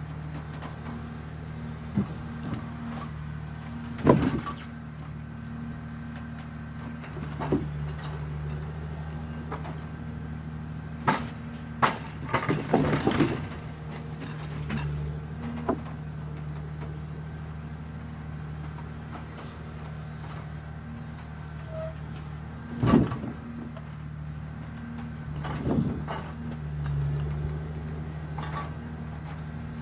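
Forestry forwarder's diesel engine running steadily as its hydraulic crane loads logs, with a few short, loud knocks of logs striking the load: one about four seconds in, a cluster around twelve seconds and another near twenty-three seconds.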